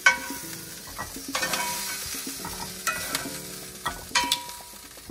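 Shrimp sizzling in hot oil in a skillet while metal tongs clink against the pan and plate as the shrimp are lifted out: four sharp clinks, each with a short ring, about a second and a half apart.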